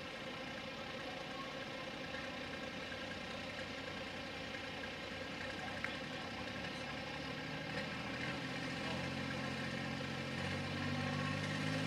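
Pro Farm class pulling tractor's diesel engine idling while hooked to the sled, its revs coming up a little in two steps in the second half.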